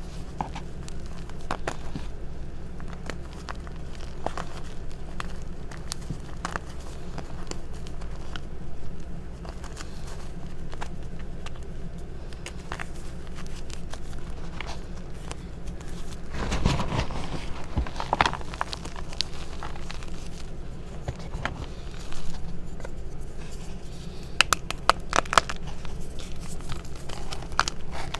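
Hands crushing and crumbling reformed gym chalk in a bowl of loose chalk powder: a continuous gritty crunching and crackling with scattered sharp snaps as chunks break. The snapping gets louder and denser about 17 s in and again around 25 s in.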